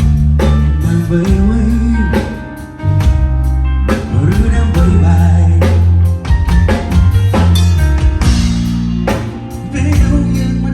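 Live band playing a Khmer pop song loud through a club PA: heavy bass notes, steady drum-kit strikes and sustained melody lines, in a passage with no sung words.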